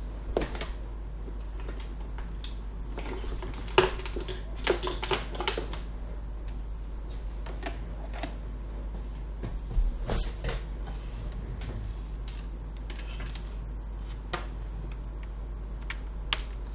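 Scattered sharp clicks and short bouts of clattering from small objects being handled, over a steady low hum. A last click near the end comes as the charger plug is brought to the laptop's side port.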